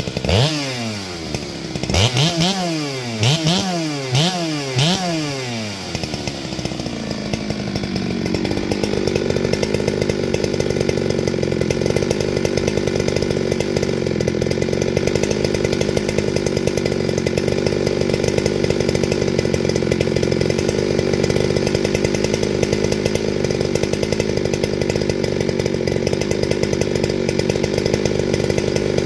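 Farmertec G395XP chainsaw, a two-stroke clone of the Husqvarna 395XP with a JonBob Skunkworks-modified engine, revved up and down in several quick throttle blips. It then climbs to a steady high speed and holds there.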